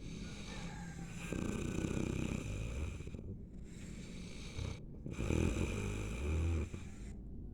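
Snoring: two long snores, the first starting about a second in and the second about five seconds in, with quieter breathing between them.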